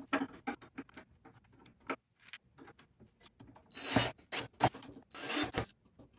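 Small clicks as a metal latch and its screws are handled. Then a cordless drill drives a screw through the latch into the polystyrene box in two short runs, about four seconds in and again a second later.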